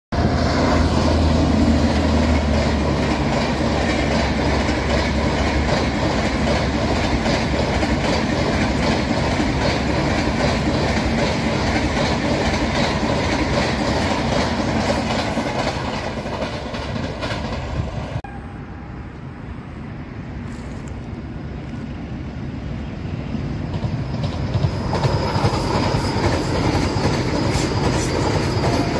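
Passenger train coaches rolling over a concrete viaduct: a steady rumble with clickety-clack of wheels on rail joints. After an abrupt cut partway through, a Vande Bharat train-set approaches and passes, growing louder toward the end.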